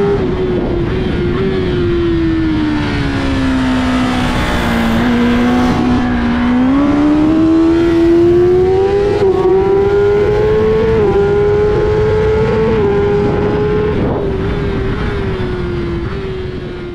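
Kawasaki ZX-10R's inline-four engine heard onboard at racing speed over heavy wind rush. The engine note drops as the bike slows for a corner, then climbs hard on the throttle out of it, with short dips at upshifts about 9, 11 and 13 seconds in, and fades out at the end.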